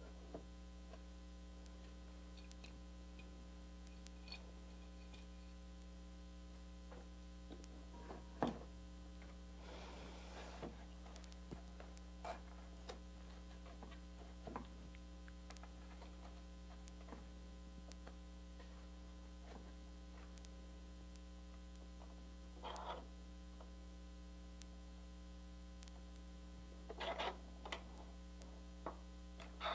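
Steady electrical mains hum, with scattered faint clicks and knocks of metal clamps being handled and screwed tight against a wooden drawer; one sharper knock about eight seconds in and a small cluster of clicks near the end.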